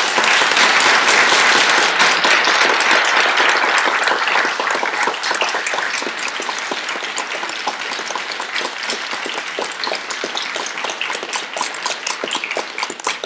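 Audience applauding at the close of a talk. It is loudest in the first few seconds, then slowly thins out, with single claps standing out toward the end.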